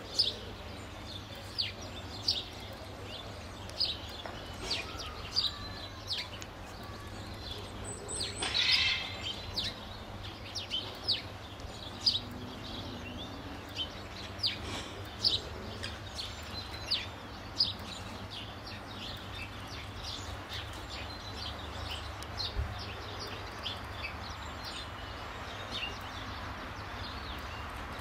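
Small birds chirping in short, scattered calls, with a louder burst about eight seconds in, over a steady low background rumble.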